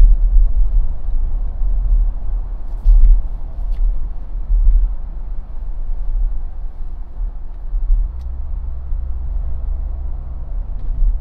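Steady low road rumble of a Jeep driving along a paved road, with a few faint clicks.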